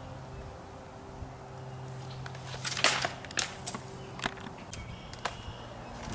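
Footsteps through dry sticks and leaf litter, with twigs snapping underfoot in several sharp cracks, the loudest about three seconds in. A steady low hum runs underneath for the first half.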